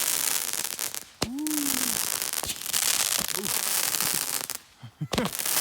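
Consumer fireworks going off close by: a dense hissing, crackling spray with sharp cracks. It drops out briefly near the end, then starts again.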